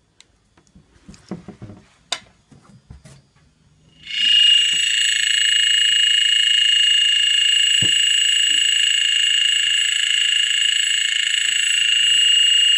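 A few faint clicks of handling, then about four seconds in the AED cabinet's door alarm goes off as the armed door is opened: a loud, steady, high-pitched electronic alarm tone that keeps sounding.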